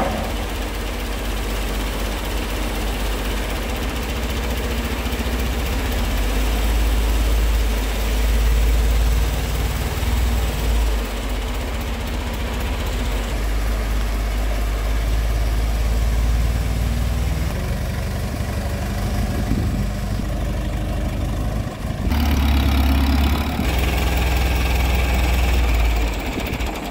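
Mobile crane's diesel engine running steadily while the crane lifts and carries a heavy machine-tool bed slung beneath its boom, with an abrupt change in the engine sound near the end.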